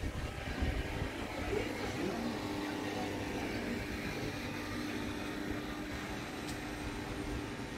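A steady mechanical hum over a low rumble, like an engine or motor running nearby.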